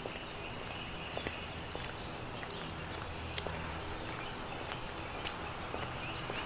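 Outdoor ambience: a steady background hum with a faint high trill from birds or insects and a few small ticks.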